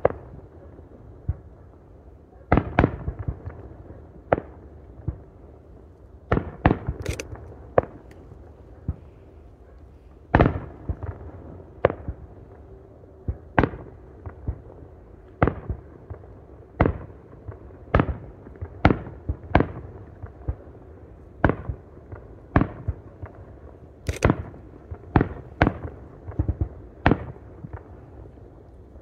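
Aerial firework shells bursting overhead one after another, a sharp boom about every second, some in quick pairs, each ringing out briefly.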